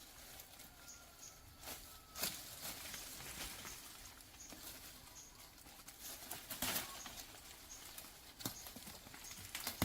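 Digging out a tuber by hand in stony, leaf-strewn ground: irregular knocks and scrapes of a tool on soil and rock, with rustling in between. Faint high chirps repeat about twice a second.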